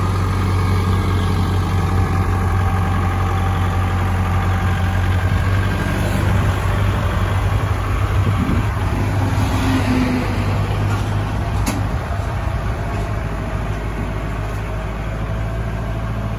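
Kubota L5018 tractor's diesel engine running steadily as the tractor drives up steel loading ramps onto a truck bed, easing off somewhat near the end. A single sharp knock partway through.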